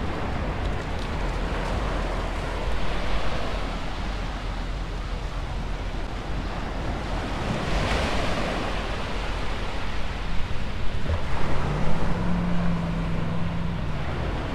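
Surf breaking and washing up the beach, with wind rumbling on the microphone; one wave breaks louder about eight seconds in.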